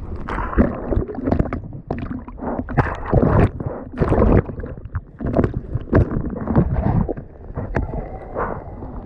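Water sloshing and splashing in uneven surges, one after another.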